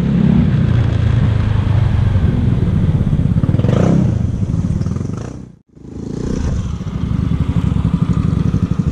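Small motor scooter engine running while riding, picked up by a camera mounted on the rider. The sound dips to nothing for a moment about five and a half seconds in, then the engine comes back.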